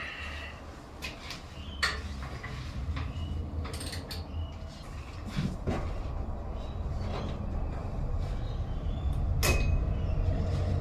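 A 3/8 ratchet being fitted onto the engine's spring-loaded serpentine belt tensioner and worked to take the tension off the belt: scattered clicks and knocks, the sharpest about two seconds in and near the end.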